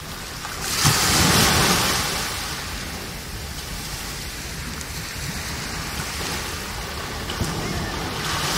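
Small waves breaking and washing up a sandy beach. The surf swells about a second in, then settles into a steady wash.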